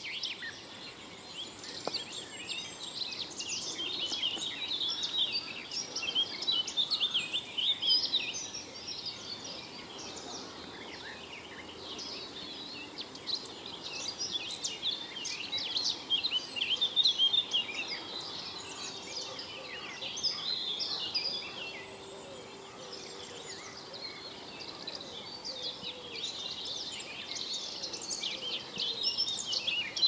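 Dawn chorus of many songbirds in a forest, singing at once: a dense, continuous tangle of chirps, whistles and trills that swells and eases.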